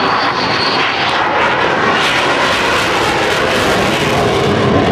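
Grumman F-14 Tomcat's twin jet engines on a slow, low pass with gear down and wings swept forward: a loud, steady jet noise with a faint high whine near the start, turning hissier from about two seconds in.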